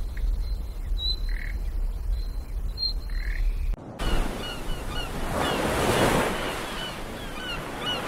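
Outdoor nature ambience. A steady low rumble with a few faint, high bird chirps; then, after a cut about four seconds in, a rushing noise that swells and fades while a bird repeats short chirps about three times a second.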